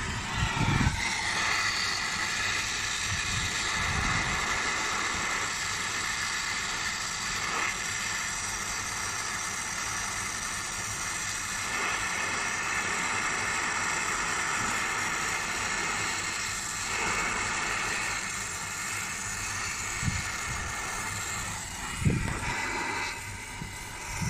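Hand-held MAPP gas torch hissing steadily as its flame heats a brazed copper pipe joint on an air-conditioner compressor to unbraze it. A couple of short knocks come near the end.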